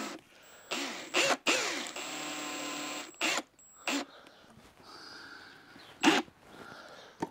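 Cordless drill-driver screwing the plastic housing of a steam wax melter back together. The motor spins up and runs for about a second and a half, with shorter bursts before and after, and a few sharp knocks in between.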